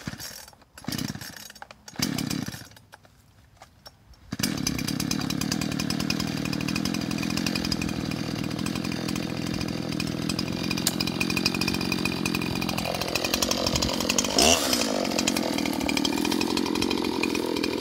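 Poulan Pro two-stroke gas chainsaw being pull-started: a few short bursts from the starter cord, then the engine catches about four seconds in and runs steadily. Near the end its pitch dips and comes back up.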